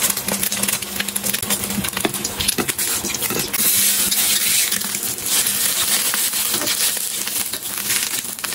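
An egg frying in hot oil in a wok, sizzling and crackling, with a metal spatula scraping and turning it. The sizzle grows louder about three and a half seconds in.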